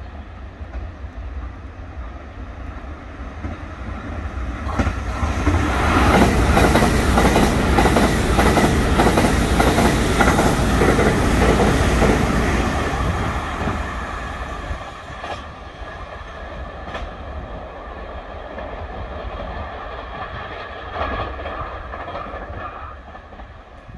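A Taiwan Railways EMU900 electric multiple unit runs through the station at speed without stopping. Its rumble and wheel noise build up, stay loud for about seven seconds as the cars go by, then fade away, with a few sharp clacks of the wheels over rail joints.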